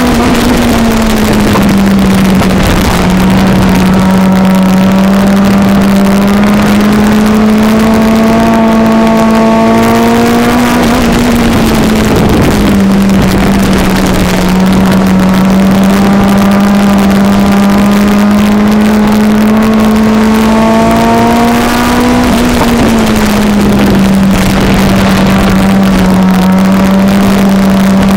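Four-cylinder engine of a front-wheel-drive IMCA Sport Compact race car at race pace, heard from inside the cockpit and very loud. Its pitch climbs slowly and then drops sharply three times, about every eleven seconds, lap after lap.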